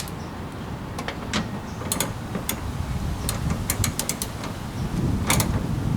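Socket ratchet on a 10 mm extension clicking in short, irregular strokes as it snugs a door-handle bolt, with little torque needed, over a low background rumble.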